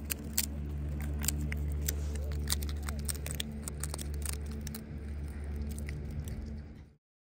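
Alpine marmots chewing peanuts, a run of sharp, crisp crunching clicks over a steady low hum. The sound cuts off suddenly near the end.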